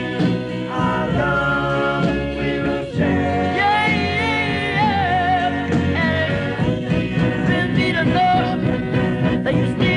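Doo-wop ballad recording: a vocal group singing in harmony, with a lead voice holding long notes with vibrato over the backing music.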